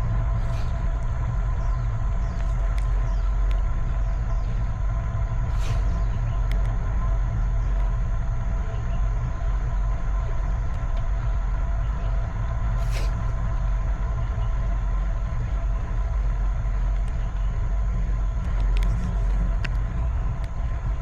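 Wind and road rumble on a camera riding along on a bicycle, with a faint steady whine and a few sharp clicks from bumps.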